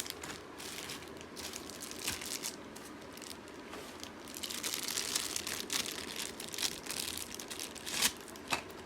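Plastic packaging crinkling and crackling in the hands as intercom accessories are unwrapped, in irregular bursts that are busiest around the middle, with one sharp crackle near the end.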